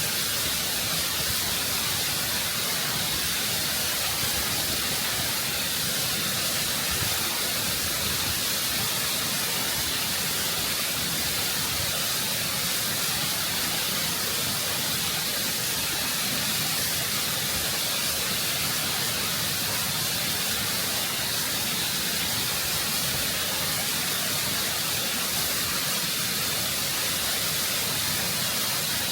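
Waterfall: water rushing and cascading over rock close up, a constant, full roar of white noise, heaviest in the hiss of the spray.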